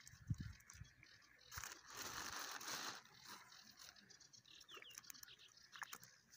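Faint handling of a wet mesh keepnet full of fish: a couple of soft thumps near the start, a rustle lasting about a second and a half, then scattered small rustles and clicks.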